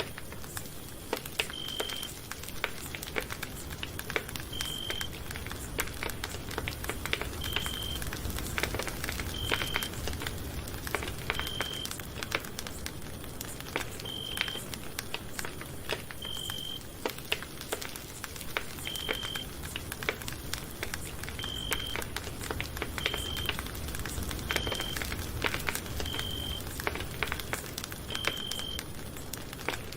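Campfire burning with steady crackling and frequent sharp pops from the wood, over a low rumble of flame. A short, high-pitched, beep-like tone recurs every two seconds or so throughout.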